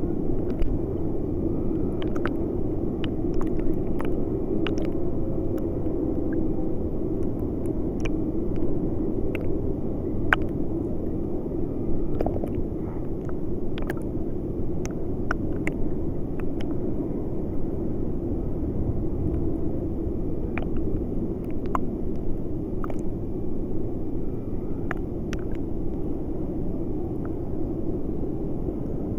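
River water sloshing and lapping against a camera held at the surface: a muffled, steady low rush with scattered small ticks and splashes.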